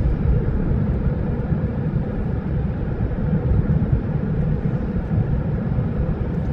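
Steady low rumble of a car's engine and tyres heard from inside the cabin of the moving car.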